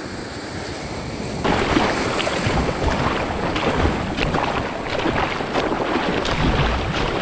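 Wind on the microphone mixed with sea surf, the rushing noise growing louder about a second and a half in, with scattered crackles.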